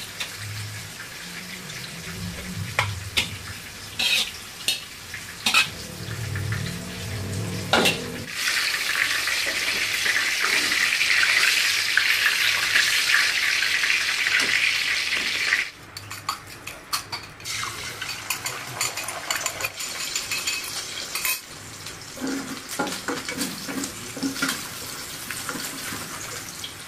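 Stovetop frying: utensils knock and scrape against pans and plates, with hot oil sizzling loudly for about seven seconds in the middle until it cuts off suddenly. Near the end, softer sizzling as egg fries in a wok and is stirred with a spatula.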